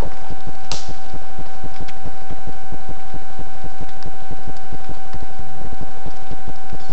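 Constant electronic buzz from the trail camera's own recording: a rapid low rattle with a steady high whine over it, and one sharp click about a second in.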